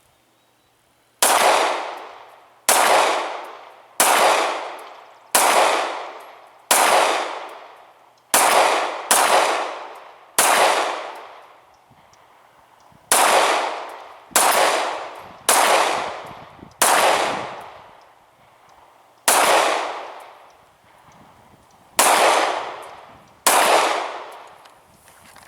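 Glock 19 Gen 4 9mm pistol with its factory polymer guide rod fired in steady slow fire, about fifteen shots roughly a second or so apart, with two short pauses. Each shot has a ringing echo that dies away over about a second.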